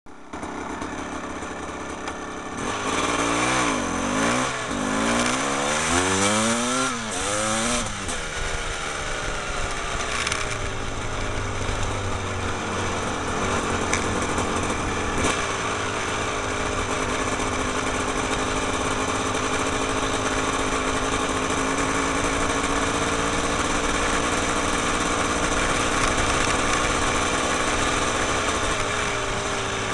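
Small petrol engine revved up and down quickly several times, then running at a steady speed with its pitch slowly drifting, over a constant rushing noise.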